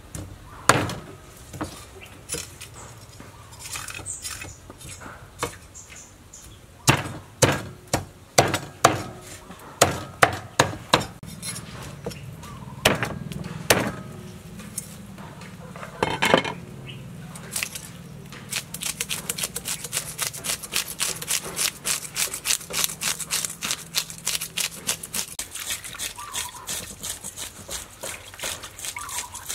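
A cleaver chops into a large fish on a wooden chopping board: sharp, irregular strikes, some in quick clusters, through the first half. From a little past halfway, hands rub and squeeze leafy greens in a plastic bowl, making a fast, steady run of lighter strokes.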